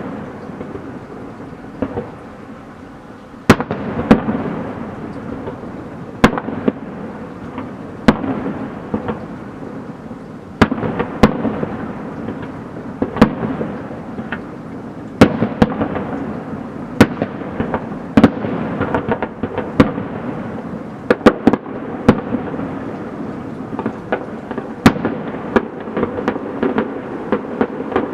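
Fireworks display: a steady run of sharp shell bursts, several every few seconds and coming thicker near the middle, over continuous crackling and rumbling.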